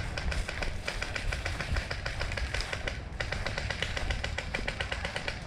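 Airsoft guns firing in rapid full-auto strings, a fast rattle of sharp clicks at roughly a dozen shots a second, with a brief pause about three seconds in.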